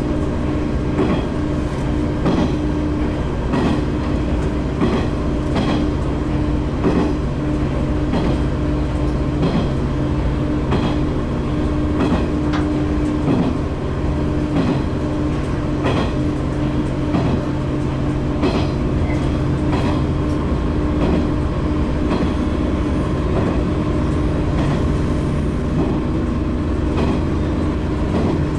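Tosa Kuroshio Railway 9640 series diesel railcar running between stations: a steady engine drone under the clack of wheels over rail joints, about once a second. The engine note changes about two-thirds of the way through.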